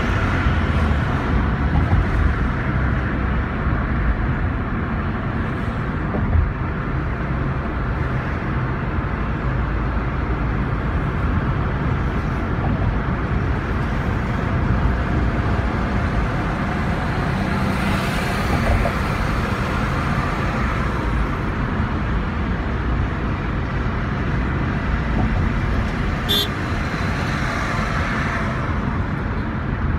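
Steady road noise inside a moving car's cabin: tyre rumble and the engine running at cruising speed, with the sound of surrounding traffic. There is a small knock about six seconds in.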